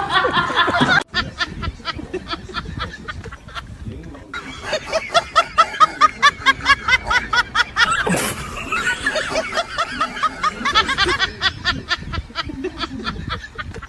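Someone laughing in a long run of quick, pitched 'ha-ha' bursts, about four to five a second. It breaks off briefly about a second in and is loudest from about four to eight seconds in.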